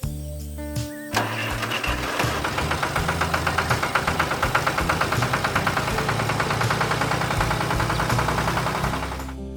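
Engine running with a fast, even clatter, starting about a second in and cutting off near the end.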